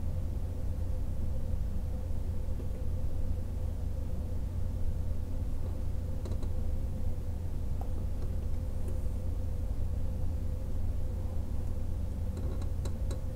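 Steady low background rumble with a faint steady hum, and a few light clicks of hand tools (flush cutters and a soldering iron) touching the wire at a helping-hands clamp, with a quick run of clicks near the end.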